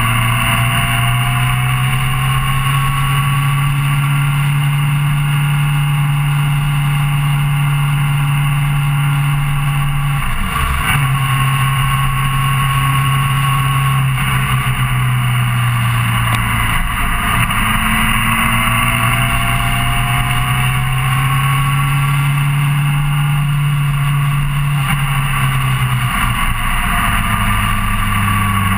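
Suzuki GSR600 motorcycle's inline-four engine running at steady road speed while riding. Its note breaks briefly about ten seconds in and drops lower near the end.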